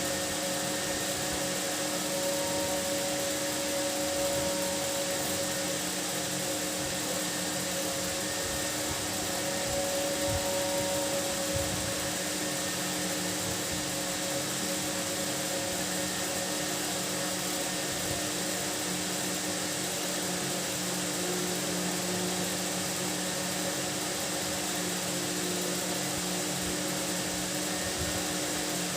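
A steady mechanical hum with hiss that holds a constant pitch and level throughout.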